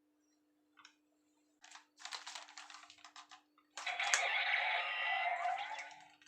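DX Drive Driver toy belt being handled: a few plastic clicks and a clattering run. About four seconds in, the toy's built-in speaker starts a loud electronic sound effect that carries on.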